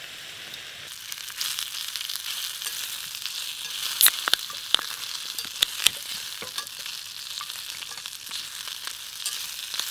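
Food sizzling in a frying pan on a gas camping burner, a steady frying hiss. About four seconds in comes a sharp crack as a beer can's pull tab is opened, followed by a few smaller clicks.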